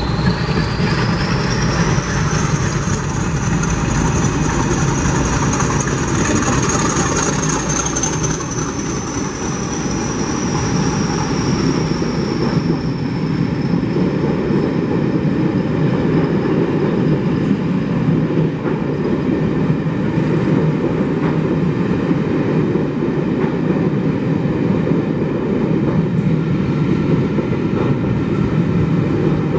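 English Electric Class 40 diesel locomotive D345 passing at speed with a train of coaches. Its high turbocharger whistle rises as it approaches and falls away as it goes by, then the steady rumble and clatter of the coaches running past continues.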